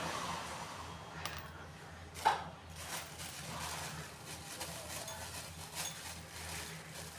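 Light knocks and clicks of hands-on work on an electric water pump, with one sharper knock about two seconds in, over a steady low hum.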